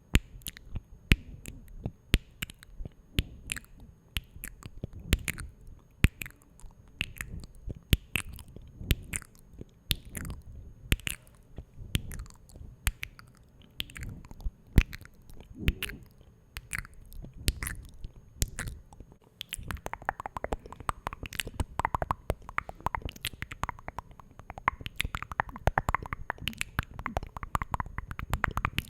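Close-miked ASMR mouth sounds: a run of wet clicks and smacks, a few a second, growing denser and fuller about two-thirds of the way through.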